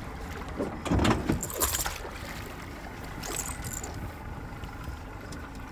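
A 115 hp Yamaha outboard motor running steadily at trolling speed on a small aluminium fishing boat. A few short noisy bursts come through about a second in and again a little past the middle.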